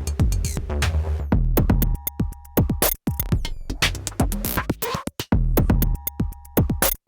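Teenage Engineering PO-32 Tonic pocket drum machine playing a fast electronic beat from custom samples: deep booming kicks under quick clicky hits, with a held two-note tone coming back now and then. The beat cuts out for an instant twice.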